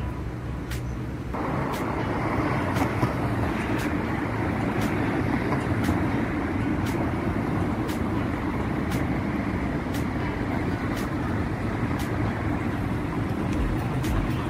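Street traffic noise: a steady rush of passing road vehicles, which grows louder and fuller about a second in and then holds steady.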